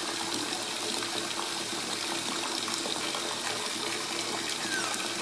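Water running steadily into a bathtub, a constant splashing rush. Near the end come a couple of brief, faint falling whimpers from the puppies.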